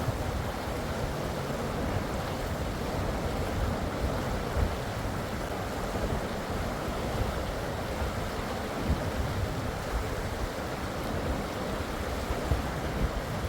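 River water flowing steadily, with wind rumbling on the microphone.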